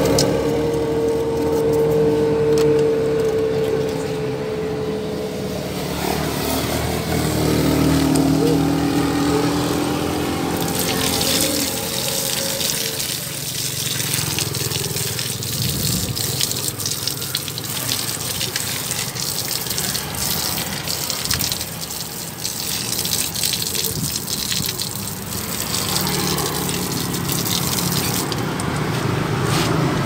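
A steady hum, with toothbrush scrubbing on a remote control's parts, for about the first ten seconds. Then water runs and splashes over the remote's circuit board and rubber keypad as they are rinsed under a stream, a steady hiss that lasts almost to the end.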